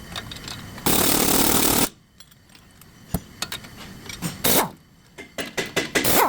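A power tool runs in one burst of about a second, followed by a scatter of sharp metallic clicks and knocks from tools and parts being handled.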